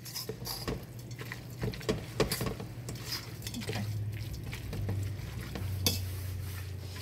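A utensil stirring and scraping shredded chicken with diced green chilies in a stainless-steel pot, with irregular clicks of metal against the pot's side. A low steady hum runs underneath.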